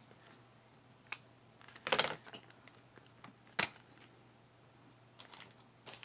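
Small objects being handled and set down: a light click about a second in, a brief rustle at two seconds, and a sharp click past three and a half seconds, over a faint low hum.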